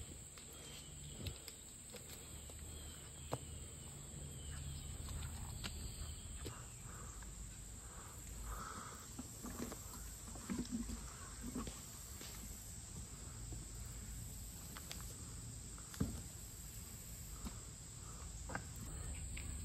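Quiet outdoor ambience: a steady high-pitched insect drone, like crickets, with a few faint clicks and knocks from handling at the table.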